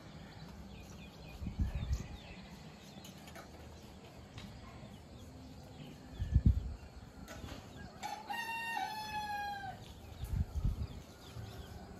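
A rooster crows once, starting about eight seconds in: a single drawn-out call of about a second and a half that slides a little lower in pitch at the end. Dull low thumps come around two seconds in, at six and a half seconds (the loudest sound here) and again near ten and a half seconds.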